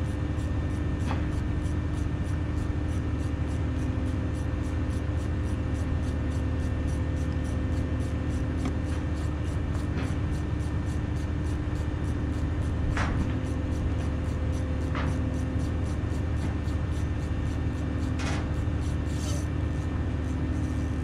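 Steady low hum of the boat's running machinery, even throughout, with a faint regular ticking and a few scattered light clicks.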